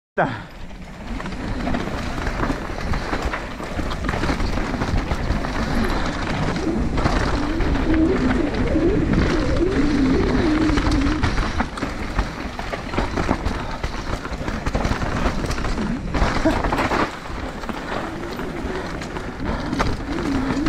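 Mountain bike riding fast down a rough trail: a steady rush of wind on the camera's microphone and tyres over dirt and rock, with constant rattles and knocks from the bike over the bumps. A wavering low hum rises over the noise for a few seconds in the middle.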